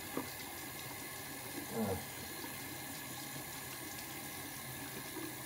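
Bathroom sink tap running steadily, a thin stream splashing into the basin. There is a faint click just after the start and a brief low sound with a falling pitch near two seconds in.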